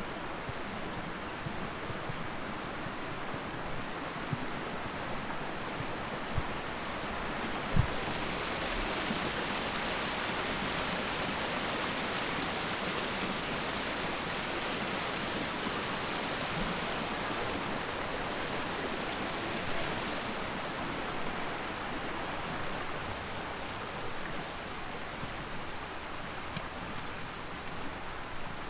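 Steady rush of flowing water that swells about eight seconds in and eases off again after about twenty, with a single sharp knock near the swell's start.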